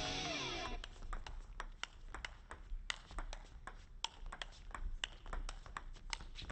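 Table tennis ball being hit back and forth: a quick run of sharp clicks from the ball striking bats and table, a few a second, after a trailing-off bit of music in the first second.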